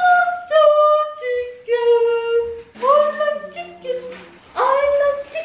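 A woman singing a short sing-song tune unaccompanied, in long held notes that step up and down in pitch. A lower voice joins briefly about three seconds in.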